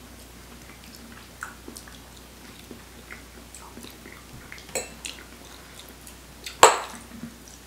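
People chewing soft durian flesh, with small clicks and scrapes of forks on plates; a single sharp click about two-thirds of the way in is the loudest sound.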